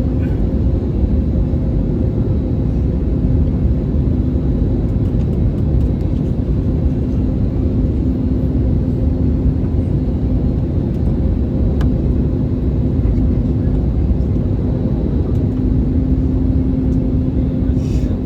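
Airbus A320neo cabin noise in flight: a steady low rumble of engines and airflow with a constant hum running through it. One faint click comes about twelve seconds in.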